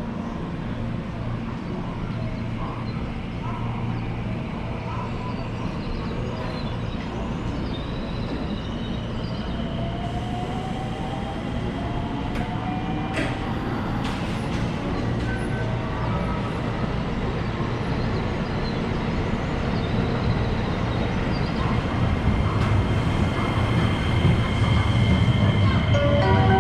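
JR West electric commuter train running at a station platform: a steady rumble with an electric motor whine that rises in pitch from about a third of the way in, the rumble building louder toward the end as a train draws near.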